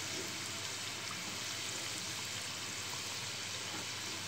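Kajjikayalu, small flour dumplings stuffed with coconut and jaggery, deep-frying in hot oil in a steel pan: a steady bubbling sizzle.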